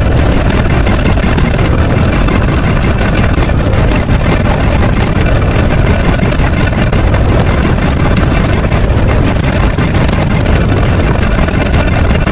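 A loud, steady engine-like rumble with no breaks or changes in level.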